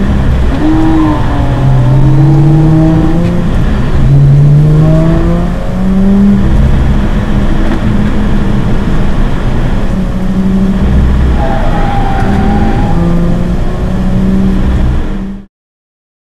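Subaru Legacy 3.0 Spec.B's EZ30 flat-six engine, heard from inside the cabin, revving up hard in a series of rising pulls with drops between them, then running more evenly as the car slows. The sound cuts out abruptly for about a second near the end.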